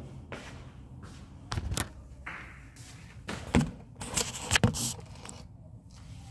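A phone camera being picked up and handled: knocks, bumps and rubbing of fingers on the phone and its microphone. The loudest cluster of knocks comes between about three and five seconds in.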